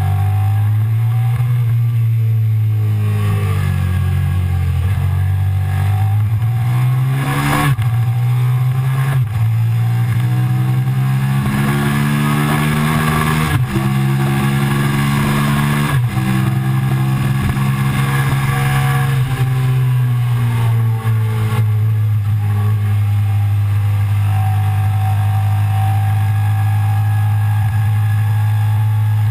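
Suzuki SV650's V-twin engine under hard acceleration, heard from on board. Its note climbs and drops back at each of about four upshifts in quick succession, then eases off and holds a steadier note, over wind rushing past.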